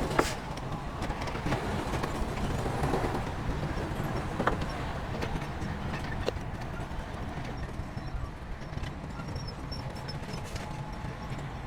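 Heavy earthmoving machinery working: a steady low diesel rumble with scattered metallic clanks and knocks.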